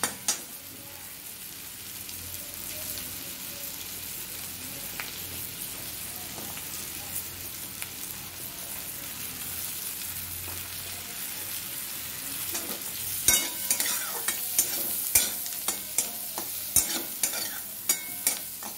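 Carrot, onion and ginger sizzling in butter in a steel wok, a steady hiss. About two-thirds of the way through, a metal spatula starts stirring, clinking and scraping against the pan.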